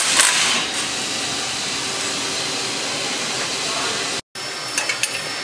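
Steady hiss of shop background noise, with a short clatter right at the start and a few light metallic clicks of hand tools near the end, during removal of a truck's front steering damper.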